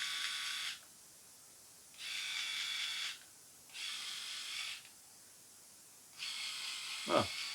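Moon Shave FlexSeries electric head shaver with a freshly swapped-in attachment, switched on and off in short runs: a steady high buzz that stops just under a second in, runs twice more for about a second each, and starts again about six seconds in.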